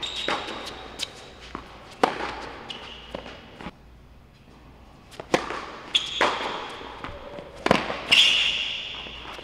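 Tennis rally on an indoor hard court: sharp, echoing pops of rackets striking the ball and the ball bouncing, several times, with high squeaks of tennis shoes on the court, loudest near the end.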